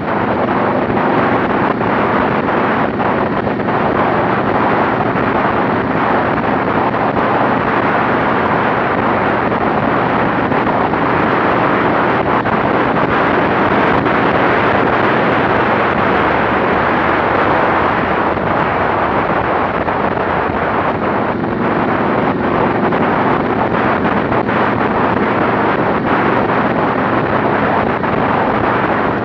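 Loud, steady wind noise buffeting the microphone of a camera on a motorcycle at highway speed, with the motorcycle engine's even drone faintly underneath.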